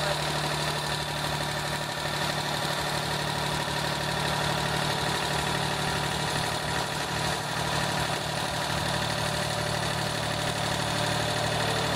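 Compact tractor engine idling steadily.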